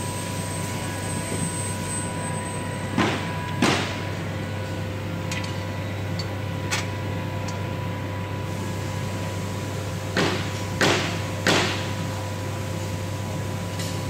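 Short scraping knocks from hands fitting a seatbelt reel and its two M8 mounting bolts inside a seat back: two about three seconds in and three more about ten to eleven seconds in, over a steady low hum.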